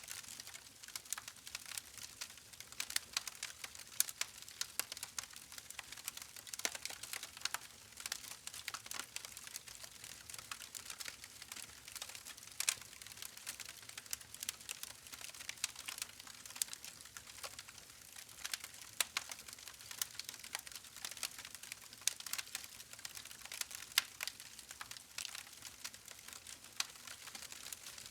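Campfire crackling: a constant run of small pops and snaps, with a few sharper snaps standing out here and there.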